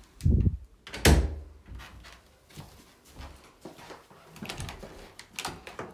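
Storage cupboard door being swung shut: two thuds within the first second or so, the second the loudest, followed by softer knocks and handling noises.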